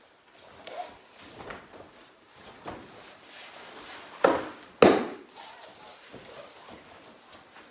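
A person thrown onto a martial-arts mat, landing with two loud slaps about half a second apart, a little past the middle. Quieter scuffs and thuds of feet and bodies moving on the mat come before and after.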